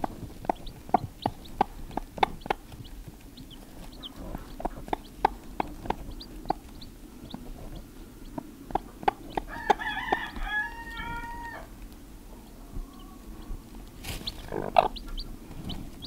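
Icelandic broody hen clucking in short, repeated low calls to her day-old chicks, the mother hen's call that shows them food, with the chicks' faint high peeps among them. About ten seconds in there is a short, drawn-out call that holds its pitch, and a louder call comes near the end.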